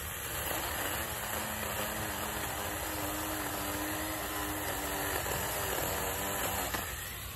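Small 21-volt cordless mini chainsaw running, its electric motor and chain whirring at a high pitch that wavers as it works through a branch, then stopping near the end.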